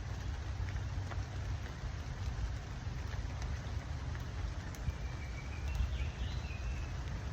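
Steady rain falling, an even hiss with scattered small drop ticks over a low rumble. A faint high wavering call comes about five seconds in.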